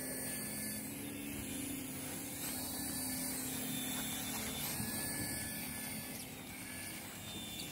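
Small hand-sensing toy helicopter's electric motor and rotor blades whirring steadily in flight. The whir weakens after about six seconds.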